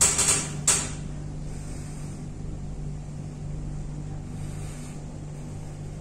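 Mitsubishi passenger elevator car travelling down, with a steady low hum of the car in motion. In the first second there are two brief loud noises.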